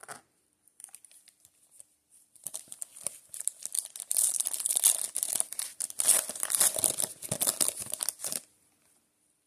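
Foil wrapper of a Panini Prizm football card pack being torn open and crinkled: a few faint clicks, then about six seconds of dense crackling that stops abruptly near the end.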